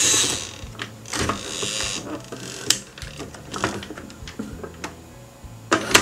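Hard plastic of a Robocar Poli ambulance toy being handled: a scrape at the start and another about a second in, then several sharp clicks as its parts and red siren light are pressed and moved.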